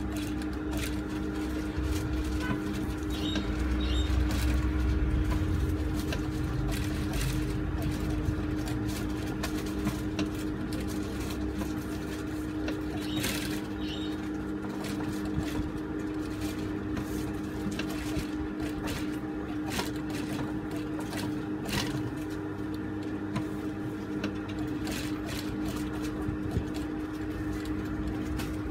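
Industrial sewing machine stitching along printed lines on a paper pattern sheet. It runs with a steady motor hum and occasional short clicks from the needle and feed.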